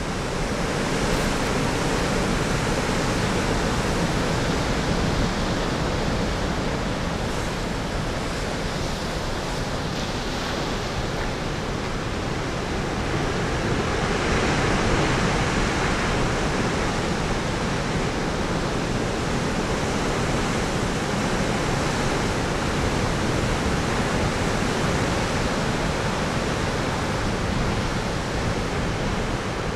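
Big storm waves breaking along a rocky shore: a steady, dense rush of surf with no let-up, swelling briefly about halfway through.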